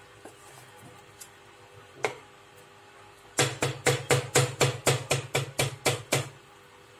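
Wooden spatula knocking against the side of a metal pan while stirring a thick curry: one knock, then a quick run of about a dozen knocks, four or five a second, lasting nearly three seconds. A faint steady hum sits underneath.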